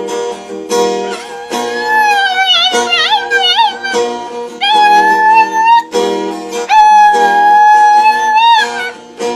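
A dog howling along to music with a plucked-string accompaniment: about four long, wavering howls in a row, the longest held nearly two seconds near the end.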